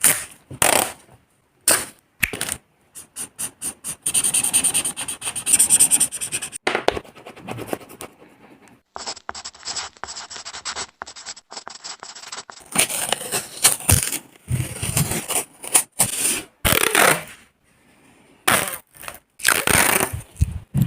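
Oil pastel sticks scraping and rubbing on paper in quick, repeated strokes with short pauses between runs, including a stretch of rapid back-and-forth strokes near the middle.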